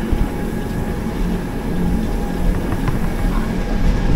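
Mountain train descending: a steady low rumble of the carriage running along the track, with a few faint clicks after the middle.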